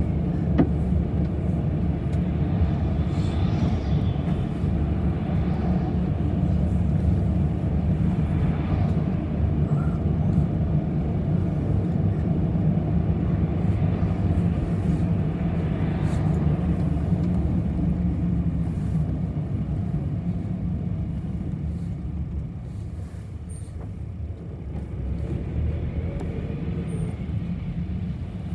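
City bus in motion, heard from on board: steady engine and road rumble, with a sharp click about half a second in. The rumble eases a little past the middle and picks up again near the end.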